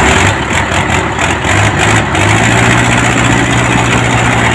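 Mitsubishi Colt Diesel truck engine running steadily at idle.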